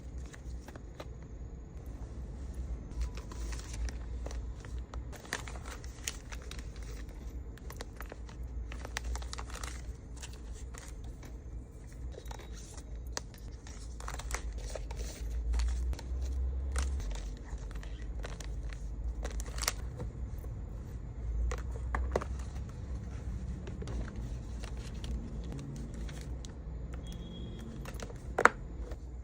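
Hand-packing small accessories: packaging material rustling and crinkling, with tearing and light scraping and tapping as items are handled, and one sharp click near the end.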